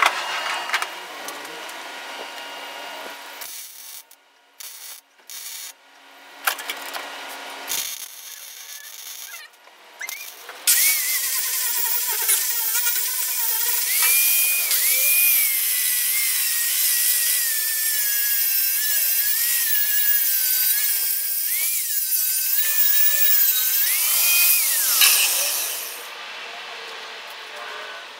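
Handheld angle grinder grinding a steel plant stand. Its motor whine dips and recovers as it bears on the metal, running loud for about fifteen seconds in the second half. Before that come shorter bursts of tool noise that cut off abruptly.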